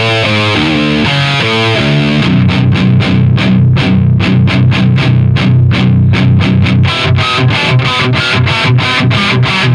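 Distorted electric guitar played through a Diezel VH2 tube amplifier. It starts with a couple of seconds of held notes, then goes into a fast, tight chugging riff of about four to five strokes a second.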